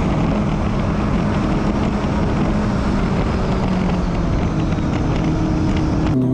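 Onboard sound of a turbocharged four-cylinder jet ski on methanol slowing down from about 100 mph: dense wind and water rush with the engine tone sinking slowly in pitch. It cuts off abruptly just before the end.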